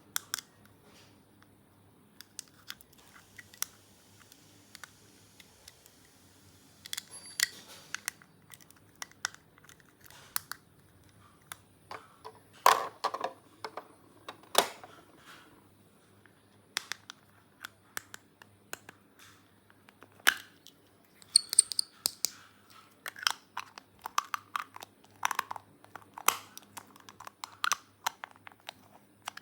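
Small plastic toy pieces and their packaging being handled: irregular clicks and taps, with brief crinkling rustles now and then.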